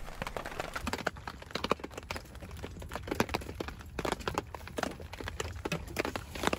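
Irregular sharp knocks and clicks, uneven in strength, over a low steady background.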